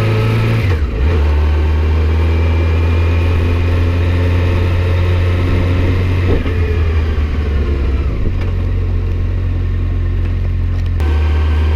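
Honda Nighthawk 750's air-cooled inline-four engine running as the motorcycle is ridden slowly down a street, heard as a heavy low rumble from the bike. The engine note shifts about a second in and again near the end.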